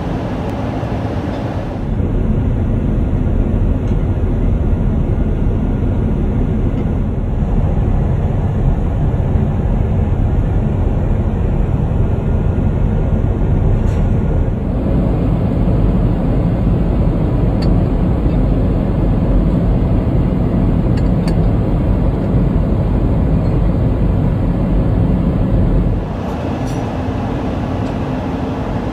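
Steady low rumble of Boeing 777-300ER cabin noise from its GE90 engines and the airflow around the fuselage. The level steps up about two seconds in and back down near the end.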